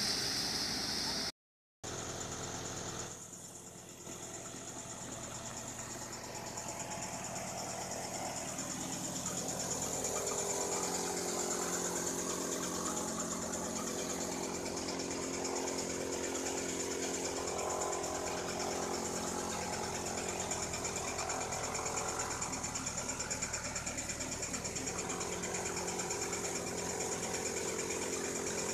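Threshing machine running steadily as straw is fed into it: a constant mechanical hum and whirr with a high whine. The sound drops out for a moment about a second and a half in, then the running grows louder over the next several seconds and holds steady.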